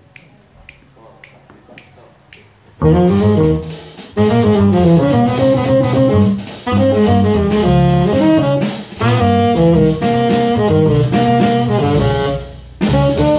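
Soft ticks keep the tempo, about two and a half a second. About three seconds in, a jazz trio of tenor saxophone, double bass and drum kit comes in loudly on the head of a bebop blues. The phrases are broken by short stops.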